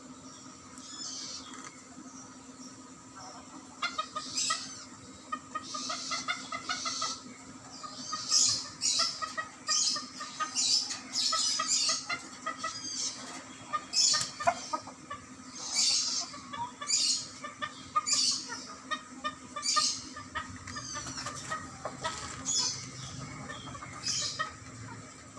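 Chickens clucking, mixed with short, sharp, high chirps from small birds repeating about once a second from about four seconds in.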